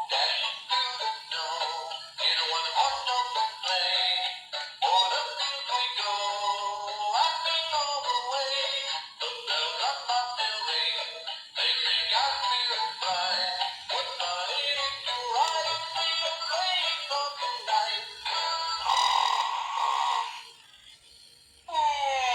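A battery-powered Santa Claus doll's small built-in speaker playing an electronic song with a synthesized singing voice. The sound is thin, with no bass. The song breaks off about 20 seconds in, and a falling whistling tone starts near the end.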